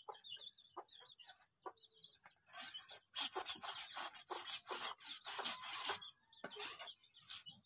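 Hand sprayer spraying liquid onto melon seedlings: quick, repeated bursts of hiss, a rapid run starting about two and a half seconds in, then two short bursts near the end. Faint high chirps and light clicks come before the spraying.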